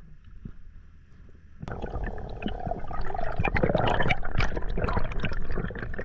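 Water heard through an underwater camera: faint at first, then from a sudden start about a second and a half in, a steady rush of bubbling and sloshing with many small pops and clicks as a freediver in fins moves at the surface.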